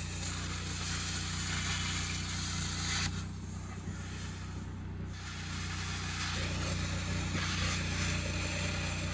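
Plasma cutter cutting steel: a high hiss for about three seconds, a pause, then the hiss again from about six and a half seconds in, over a steady low hum.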